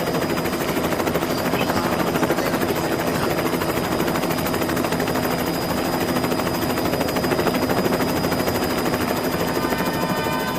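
Mil Mi-8-family transport helicopter idling on the ground with its rotors turning: a steady fast rotor beat over engine noise, with a thin high turbine whine running through it.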